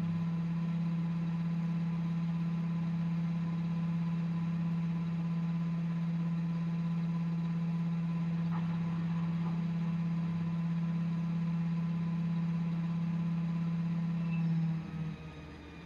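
Front-loading washing machine running with a steady low hum, which winds down and stops about fifteen seconds in.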